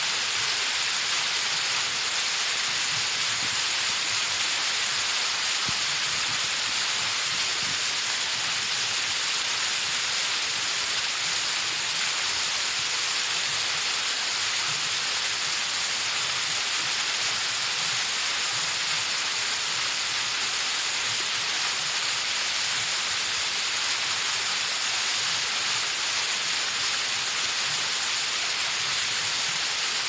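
Waterfall pouring down a rock face onto rocks below: a steady, even hiss of falling water that does not change.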